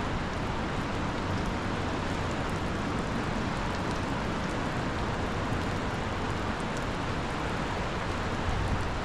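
Steady rushing of a river in flood: an even, unbroken noise.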